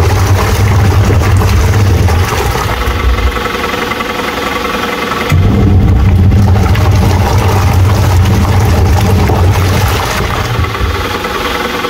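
Haier twin-tub washing machine running its wash cycle: a loud, steady motor hum that eases off for a couple of seconds, twice, then comes back in full, as the wash motor stops and restarts.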